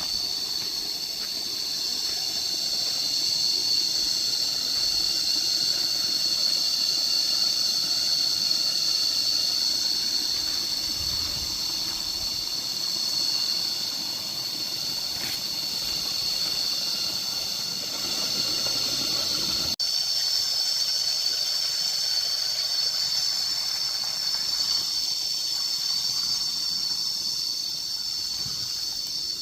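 Cicadas singing in a steady, continuous high-pitched chorus, with a brief break about two-thirds through.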